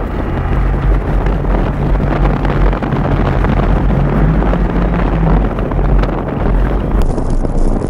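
Mini Countryman S ALL4 driving through deep snow: the engine is running steadily, its note lifting briefly about four to five seconds in, under heavy wind rumble on the outside-mounted microphone and the noise of the car pushing through snow.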